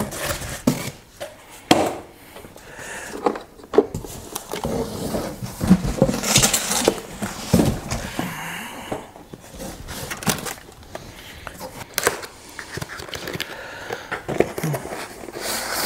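Cardboard packaging scraping and rustling as a boxed pancake air compressor is unpacked, with scattered knocks and thumps as the compressor is lifted out and set down and the cardboard inserts are pulled off.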